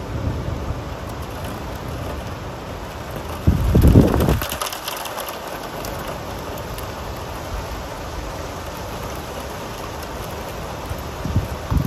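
Steady rain heard from behind a rain-streaked window pane. About three and a half seconds in comes a brief, loud low rumble, and a fainter one comes near the end.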